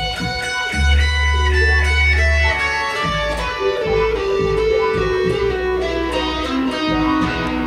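Live guitar music played through effects pedals: plucked notes sustain and overlap into a melody over a steady deep bass tone that shifts pitch every second or two.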